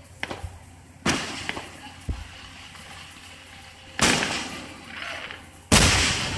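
Aerial fireworks shells bursting: three loud booms, about a second in, about four seconds in and near the end, each trailing off over a second or so, with a few smaller pops between.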